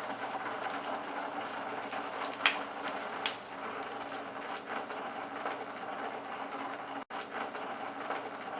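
Steady rain with many individual drops ticking close by, and two louder drips about two and a half and three and a quarter seconds in. The sound cuts out for a split second about seven seconds in.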